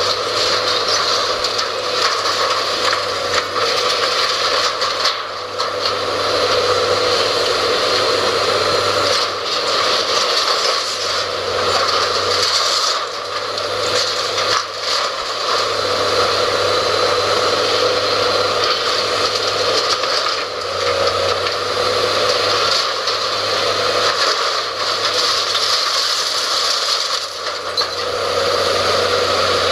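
Hydraulic demolition excavator running steadily while its grab tears at a metal-framed building, with occasional crunches and scrapes of metal and debris.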